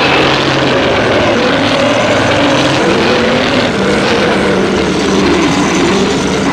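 A Godzilla sound effect: one long, loud, harsh blast lasting about seven seconds, with a pitch that wavers up and down. It starts and cuts off abruptly.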